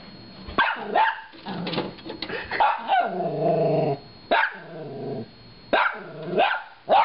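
Small shorkie (Shih Tzu–Yorkshire terrier mix) puppy barking repeatedly, about eight barks, some short and sharp and some longer ones that fall in pitch.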